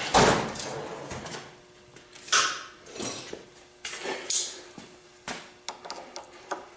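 Metal clinks and knocks of vise-grip locking pliers working a stuck key out of an Ingersoll Rand 2545 compressor crankshaft: a sharp knock at the start, then scattered clinks and a few light ticks near the end.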